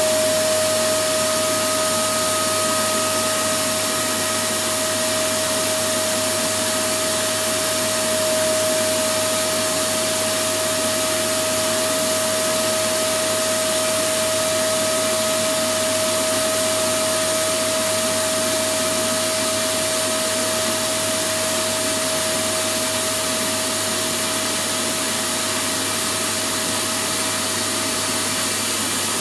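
Electric vacuum cleaner running steadily: an unchanging rushing hiss with a steady whine from its motor.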